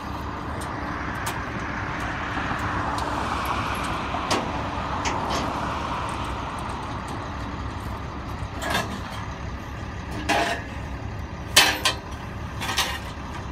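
Steady road-vehicle noise that swells and then fades over the first few seconds. In the second half come a few sharp knocks and clatters from handling things in a truck's rear compartment.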